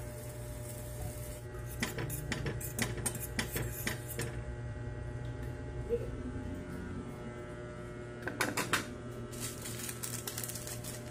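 Metal utensil clinking against a stainless steel saucepan in quick runs of clicks as instant noodles are stirred: a run about two seconds in, and a shorter one about eight seconds in. A steady low hum lies underneath.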